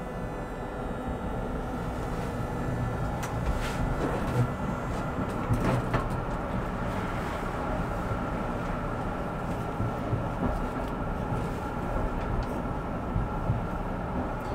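Electric tram running along the track, heard from inside the driver's cab: a steady rumble of wheels on rails under a steady high hum, with a few sharp clicks as the wheels run over switches.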